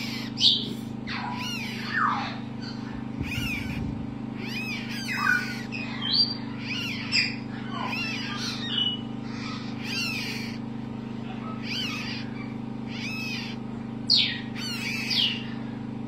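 Parrot chick giving short, squeaky begging calls about once a second while it is fed formula through a syringe and soft tube.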